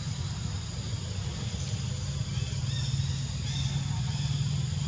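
Steady low rumble of a running motor vehicle engine, with a few faint bird chirps high above it around the middle.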